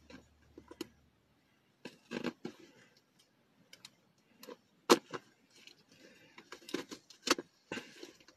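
A cardboard box being handled and pulled open by hand: irregular clicks, knocks and rustling, with two sharp snaps about five and seven seconds in.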